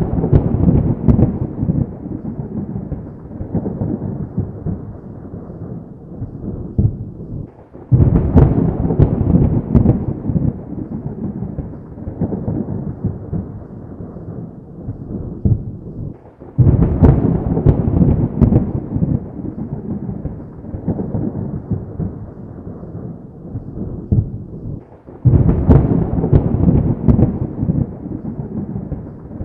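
Thunder: a clap rumbling away at the start, then three more sharp claps about eight, seventeen and twenty-five seconds in. Each rolls into a long low rumble that fades over several seconds.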